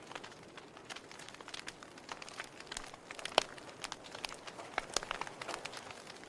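Wood fire in a fireplace crackling: irregular sharp pops and snaps over a low hiss, with one louder snap about three and a half seconds in.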